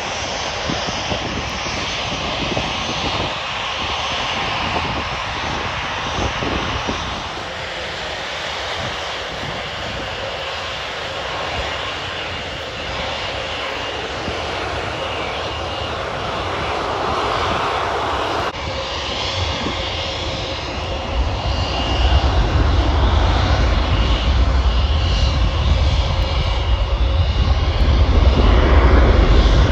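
Boeing 737 airliner jet engines running: first one landing, then, after an abrupt change, another rolling down the runway. Its deep rumble grows much louder about two-thirds of the way in and stays strong.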